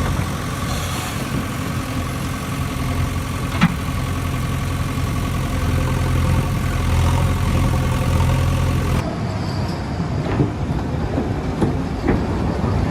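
Heavy diesel engine of the earthmoving machinery running steadily. About nine seconds in, the sound cuts to a thinner-sounding engine with a few sharp knocks.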